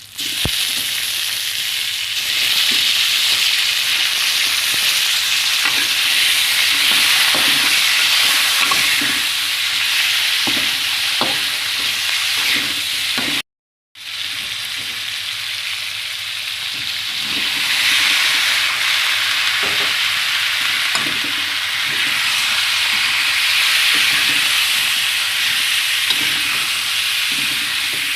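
Food sizzling as it fries in hot oil in a pan, with the knocks and scrapes of a utensil stirring it. The sizzle breaks off for a moment about halfway through, then carries on.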